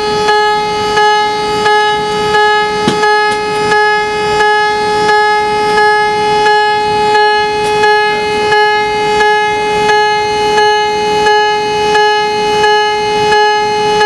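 Los Angeles-class submarine's general alarm sounding under test: a loud, steady horn-like tone pulsing about one and a half times a second. It is the alarm that wakes the whole ship and sends the crew to respond to a casualty.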